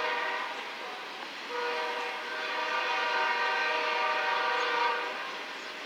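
Freight locomotive air horn sounding a chord of several tones: a blast that ends about half a second in, then a longer blast of about three and a half seconds, over the steady rumble of the passing train.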